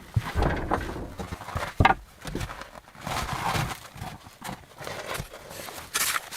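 Irregular knocks and crunching steps, with a sharp knock just under two seconds in and a longer scraping crunch about three seconds in.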